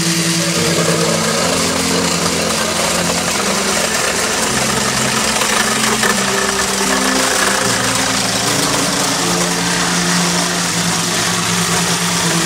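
Hychika 18V cordless reciprocating saw cutting steadily through a softwood batten, its blade rasping back and forth in the wood.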